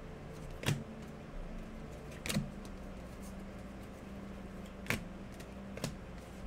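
Trading cards being handled and set down on a table: four short, sharp taps a second or two apart, over a faint steady hum.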